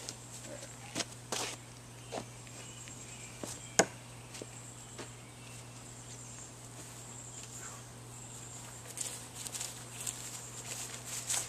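Steel screwdrivers knocking and clinking against the wooden log-round target, a few sharp knocks in the first four seconds, the loudest about four seconds in. Footsteps in grass and a run of small clicks follow as the screwdrivers are pulled out and carried back, over a steady high buzz of insects.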